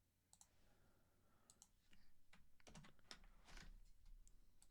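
Faint clicking of a computer keyboard and mouse being worked: a few scattered clicks, then a quicker run of them from about two seconds in.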